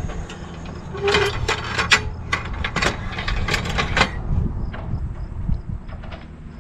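Rocna 25 kg anchor being handled in its stern-rail bracket: a quick run of metal clanks and knocks against the stainless rail and mount lasts about three seconds, followed by a few lighter taps. A low steady rumble runs underneath.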